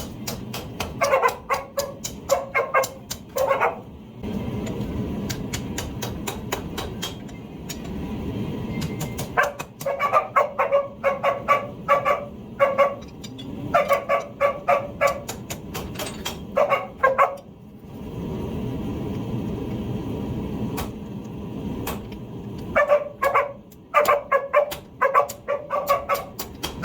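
A dog barking in runs of several quick barks, four runs in all, with a low steady rumble and sharp clicks in the pauses between them.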